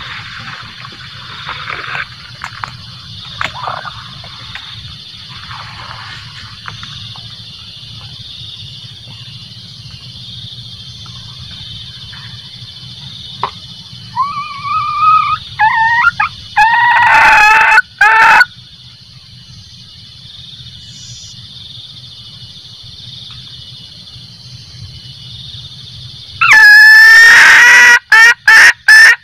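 Female junglefowl cackling, the hen's call used to lure males. A short series of pitched calls about halfway through is followed near the end by a fast run of loud, evenly repeated cackles, all over a steady high hiss.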